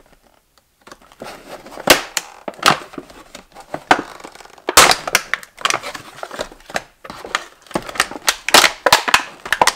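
Stiff clear plastic clamshell blister packaging being pried and pulled apart by hand, giving irregular sharp crackles and snaps, a few of them loud, after a quiet first second.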